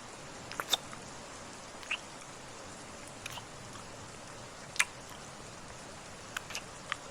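Background rain: a steady hiss with scattered single drops tapping, several of them sharp and distinct.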